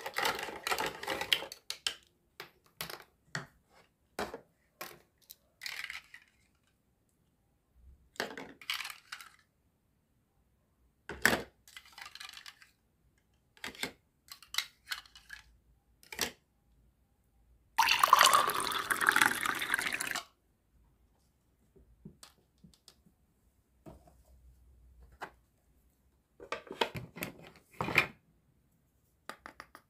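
Small plastic toy cookware, a plastic spoon and plastic toy vegetables clicking and clattering in short bursts. A little past the middle comes about two seconds of water pouring, the loudest sound.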